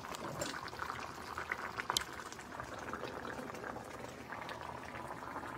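Yogurt-based potato curry bubbling at a simmer in a steel pan, with a steady crackle of small popping bubbles. There is a single sharp click about two seconds in.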